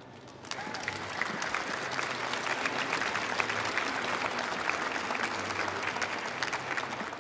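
Audience applauding. The clapping starts about half a second in and then goes on steadily.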